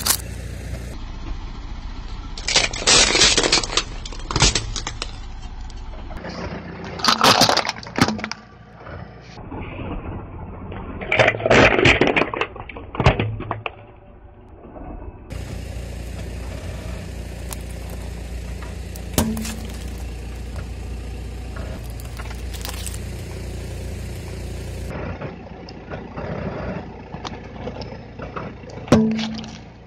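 A car tyre rolling over small plastic slime containers and crushing them, heard as loud cracking and crunching in several bursts during the first half. A car engine runs low and steady underneath, and near the end another small plastic toy is crushed with one sharp burst.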